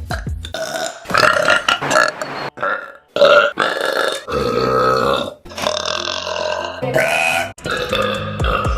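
A young woman belching air-swallowed burps, about five long, drawn-out belches in a row with short breaks between them.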